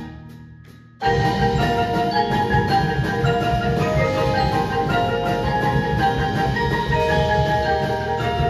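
Percussion ensemble playing: the previous sound dies away in a short rest, then about a second in the whole group comes back in together with marimbas and other mallet keyboards over an electric bass.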